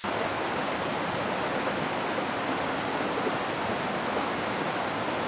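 Rocky river flowing over shallow rapids: a steady, even rush of water. A thin steady high tone runs through it.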